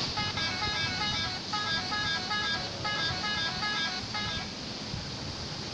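Bus 'telolet' horn, a multi-tone musical horn, playing a short tune that repeats three times, then stopping a little after four seconds in, over a low rumble.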